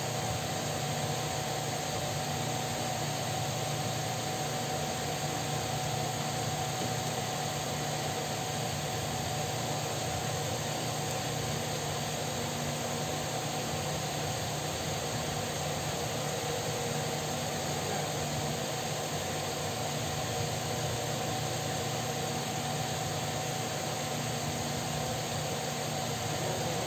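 Electric pedestal fan running steadily: a constant whirring rush with a low hum and a steady higher-pitched whine.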